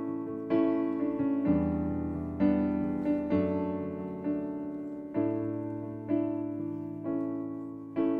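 Keyboard, in the manner of an electric piano, playing slow sustained chords, a new chord struck about once a second and each fading away.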